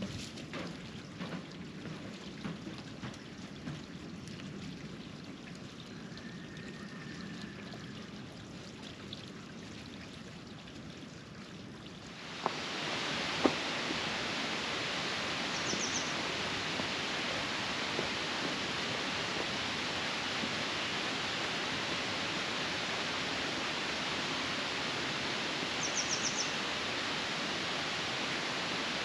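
Faint scattered ticks and rustles, then about twelve seconds in a steady rush of flowing stream water sets in suddenly and holds level. A short high chirp, like a small bird, sounds twice over the water.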